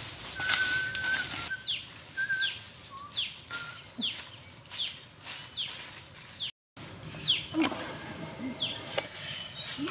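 Small birds chirping: a short, high, falling chirp repeated roughly every half-second, with a few steady whistled notes in the first half. The sound cuts out completely for a moment a little past the middle.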